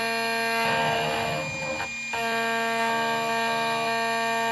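Xhorse Dolphin automatic key cutting machine running midway through milling a key blade: a steady motor whine with a regular pulsing underneath. About a second in a rougher, grinding-like noise rises, and the whine briefly cuts out near two seconds in before picking up again.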